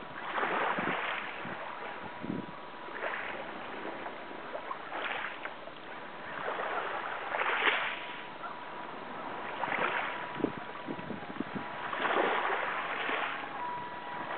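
Water sloshing and splashing against a small wooden boat's hull in rushing swells every couple of seconds, with a faint steady tone underneath.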